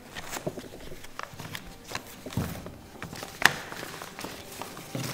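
Folded paper map being handled and unfolded: irregular crackles and rustles of paper, with a dull knock about two and a half seconds in and the sharpest crackle about a second later.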